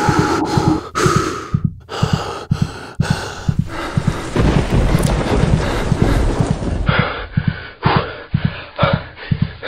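Trailer-style advert soundtrack: fast, uneven low drum hits under a layered bed of noisy sound effects. The sound turns duller about seven seconds in.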